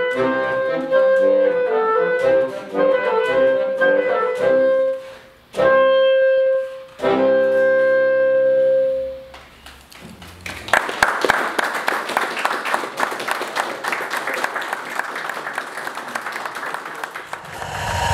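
Instrumental music with long held notes, breaking off twice and ending about nine seconds in. Then an audience applauds for about seven seconds, fading near the end.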